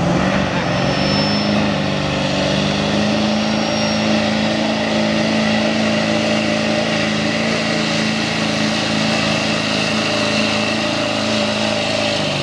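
Diesel Chevrolet Silverado pickup's engine at full throttle under heavy load, pulling a weight-transfer sled. The revs climb to a high, steady pitch and hold there, then drop away near the end as the driver lets off.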